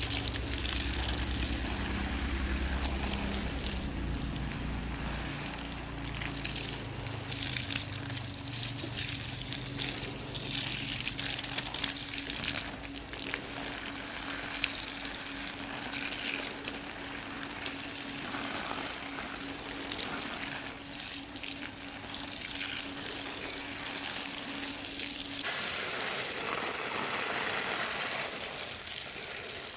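Water gushing and splashing, with a steady low hum underneath that cuts off a few seconds before the end.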